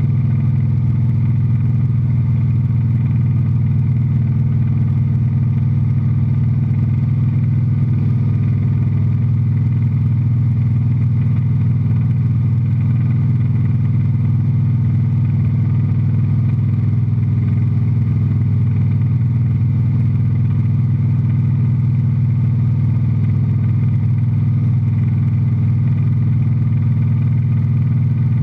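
Light aircraft's piston engine and propeller running steadily in cruise flight, heard from inside the cockpit.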